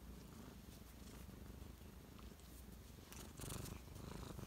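Black kitten purring softly and steadily while being stroked under the chin. A brief rustling noise about three seconds in.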